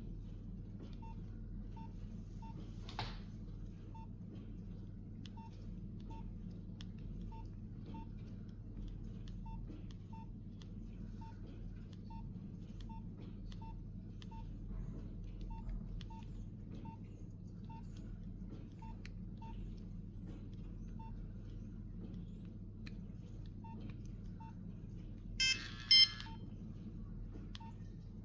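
Nokia 8810 keypad tones: short single-pitch beeps at irregular intervals as the keys are pressed to step through the phone's menus, over a faint steady low hum. Near the end, two brief louder bursts of a ringtone from the phone's speaker.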